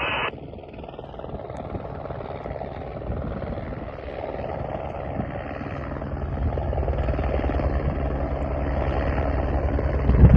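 Helicopter flying in, its rotor and turbine growing steadily louder, with a regular pulsing beat from the rotor about halfway through. A short loud burst of noise comes at the very end.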